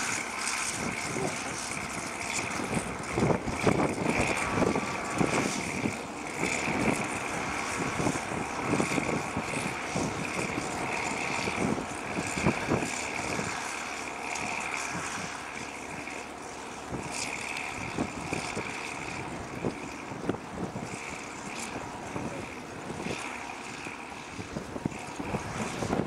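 Track Marshall crawler tractor's diesel engine running under load as it pulls a reversible plough through the soil, with a high whine over it that comes and goes.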